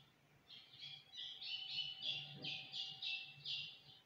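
A bird singing a run of about ten short, high chirped notes, roughly three a second, each stepping down in pitch.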